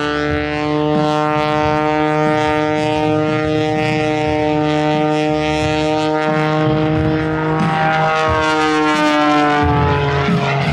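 Aerobatic biplane's 400-horsepower Lycoming engine and propeller droning overhead at a steady pitch, the pitch sagging slightly near the end.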